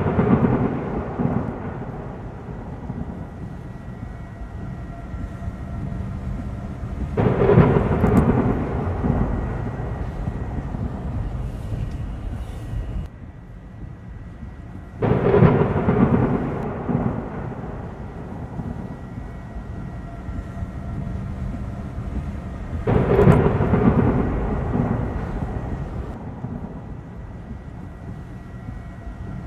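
Thunderstorm: rolls of thunder over a steady rushing noise, a loud rumble breaking in about every eight seconds and dying away.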